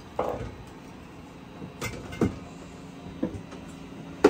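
Groceries being stowed in a wooden galley cupboard: a few separate knocks and clunks of a bottle and other items set down on the shelf and against the cabinet. A faint steady hum comes in about halfway through.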